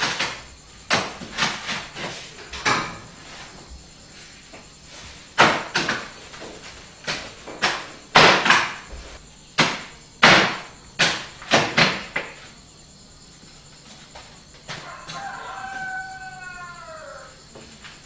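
Cleaver chopping through a whole roast pig: a run of heavy, irregular chops for about twelve seconds. Near the end a rooster crows once, a call of about two seconds that falls at its close.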